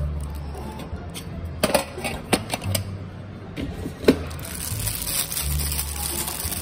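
Background music with a low bass line, broken by a few sharp clicks, the loudest about four seconds in.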